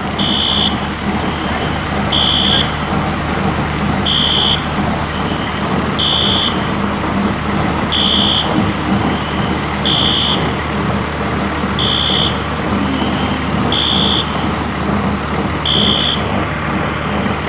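Building fire alarm sounding a short, high electronic beep about every two seconds, over a steady rushing noise of water pouring from a burst pipe and a low steady hum.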